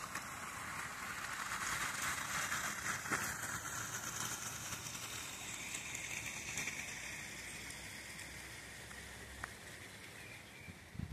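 Fast-flowing river water in flood, a steady rushing hiss that swells a couple of seconds in and slowly fades near the end.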